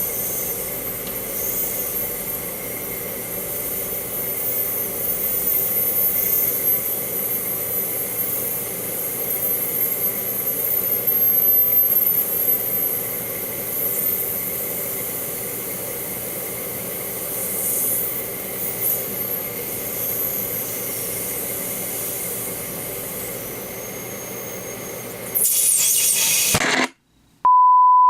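Microwave oven running with a steady hum and a high, wavering whine. Near the end the sound suddenly gets louder, then the heated glass energy-drink bottle explodes with a sharp bang. The sound cuts out to near silence and is followed by a steady high beep tone.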